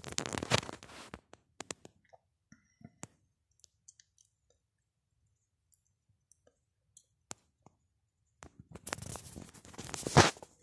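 Handling noise of a handheld camera being moved about: rubbing and scraping in the first second and again near the end, with scattered faint clicks in between.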